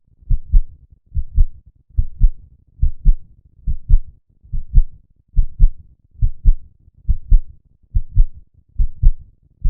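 Human heartbeat: regular lub-dub pairs of dull thumps, about seventy beats a minute.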